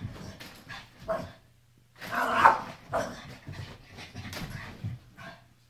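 A small dog barking repeatedly at a helmet it dislikes, in irregular sharp barks, the loudest about two and a half seconds in, with a last short bark near the end.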